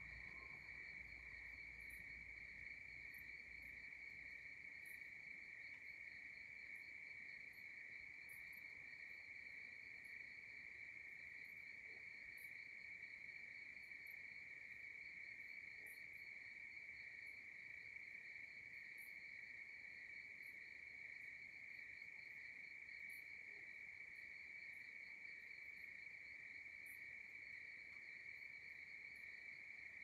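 Faint night chorus of crickets trilling in one steady, unbroken high tone, with a few scattered short high-pitched ticks over it.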